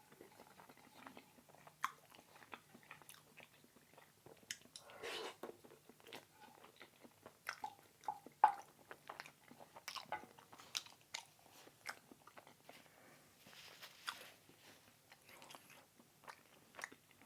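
Close-miked eating: chewing and crunching food, with many small wet mouth clicks and now and then a louder bite, the sharpest about eight seconds in.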